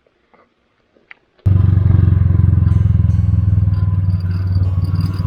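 Motorcycle engine running steadily, cutting in suddenly about a second and a half in after a few faint clicks.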